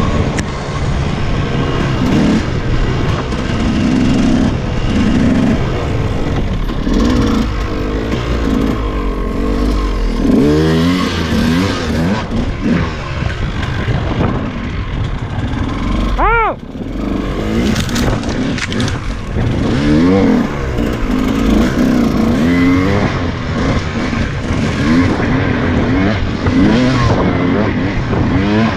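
KTM EXC 200 single-cylinder two-stroke enduro engine revving up and down repeatedly under load as the bike is ridden off-road, with one sharp high rev about halfway through.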